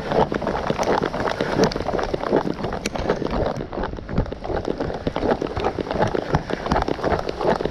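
A person running in the rain: quick, irregular footfalls and gear jostling, over a steady patter of rain.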